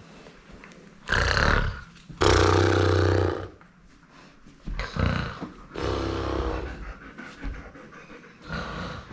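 Loud snoring noises in five bursts of about a second each, mixed with a German Shepherd's vocal reaction. The loudest burst, about two seconds in, has a low rattling drone.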